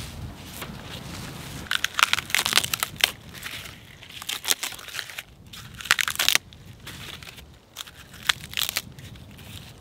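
Dry, papery birch bark crackling and tearing as it is worked off the trunk by hand, in several short crackly bouts.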